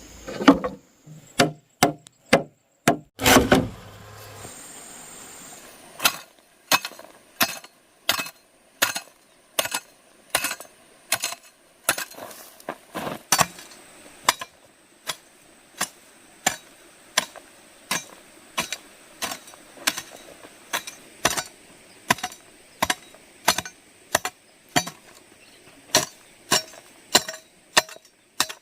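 Repeated blows of a hand tool on wood, a few irregular heavier strikes at first, then a steady run of chopping or hammering at about one to two blows a second.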